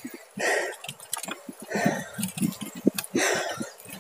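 A cyclist breathing hard and out of breath, three heavy breaths roughly a second and a half apart. Under them the bicycle rattles and clicks continually.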